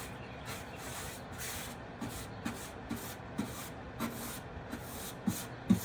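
Paint being applied to a wooden cabinet in quick back-and-forth strokes, a rhythmic brushing and rubbing at about two strokes a second. A few light knocks come near the end.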